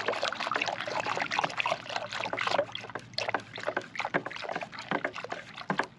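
A stick stirring water hard in a plastic five-gallon bucket, with irregular sloshing and splashing.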